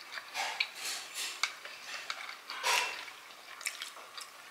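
Metal chopsticks clicking against each other and tapping on plates while picking up momos, in scattered light taps, with one short louder scrape a little past halfway.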